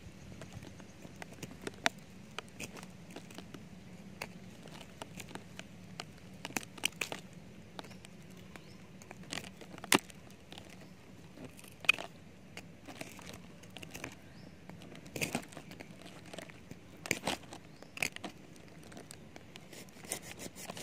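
Knife blade scraping and chipping bark and wood from a durian tree's trunk in irregular strokes, with a few sharper snaps. The blade is cutting open the tunnel of a trunk-boring grub.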